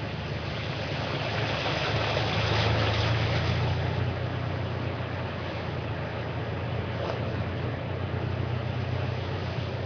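Game-drive vehicle's engine running steadily while driving, a low hum under a constant rush of tyre and wind noise, a little louder a couple of seconds in.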